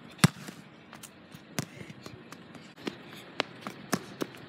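A sharp knock about a quarter second in, then a string of light, uneven taps of a child's sneakers running on a hard tennis court.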